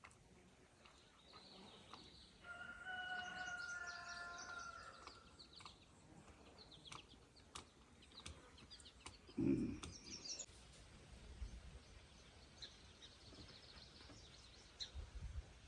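Faint rooster crowing about two and a half seconds in, a long call held for about two seconds, with small birds chirping on and off. A single low thump about nine and a half seconds in is the loudest sound.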